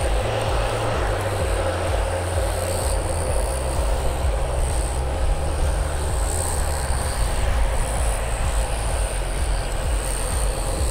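Airbus A320neo jet engines running, a steady, even roar with a deep rumble underneath and a high hiss above.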